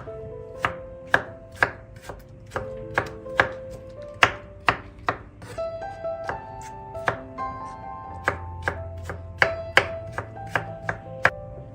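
Knife chopping on a cutting board in sharp, uneven strokes about two a second, over soft background music.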